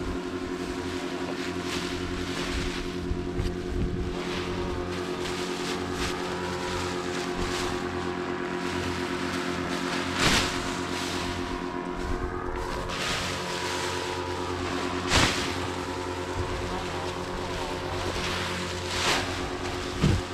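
A steady motor hum with several level tones, running without change, with a few short knocks or rustles about ten, fifteen, nineteen and twenty seconds in.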